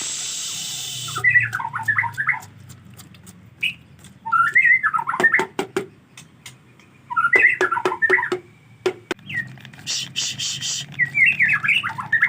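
White-rumped shama (murai batu) singing in short, quick runs of chirping notes, with many sharp clicks between the phrases. A burst of hiss comes at the start and pulsing hisses come near the end.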